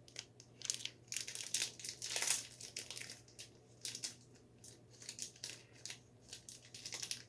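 Plastic snack wrappers being crinkled and handled: a run of short, irregular crackles.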